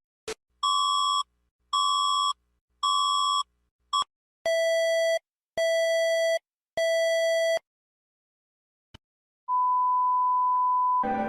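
Electronic emergency-alert tones: three short beeps about a second apart, then three longer, lower beeps, then after a pause one steady higher tone held for about a second and a half that ends in a brief noisy burst.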